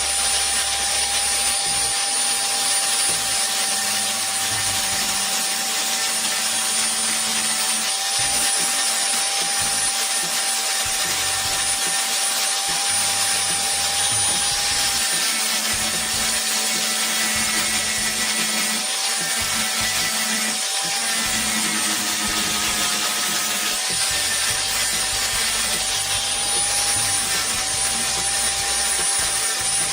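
An electric motor running steadily for the whole stretch: a continuous rushing hiss with a high, slightly wavering whine over it.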